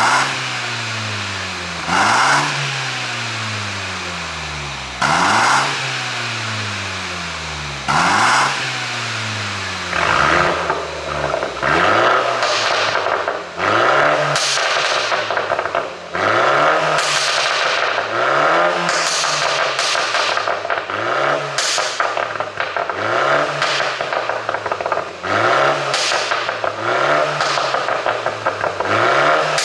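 BMW G29 Z4 20i's turbocharged 2.0-litre four-cylinder being revved in short blips, each rise followed by a falling rev drop with exhaust pops and crackles from a pop-and-crackle tune. The blips come about every three seconds at first, then about every two seconds from about ten seconds in, with the crackling growing denser.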